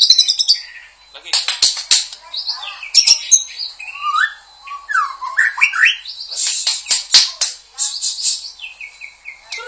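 White-rumped shama (murai batu) singing a varied song of clear rising whistles and high notes, broken by harsh rasping bursts about a second in and again from about six and a half seconds.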